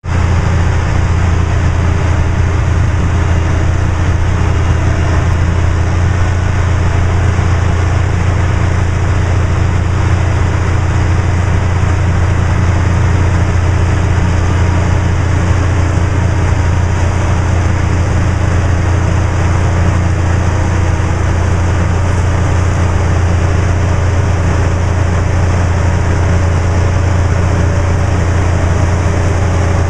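Rice combine harvester and the tractor pulling the bankout wagon running steadily at harvest work: a constant, loud low engine drone with machine noise that does not change.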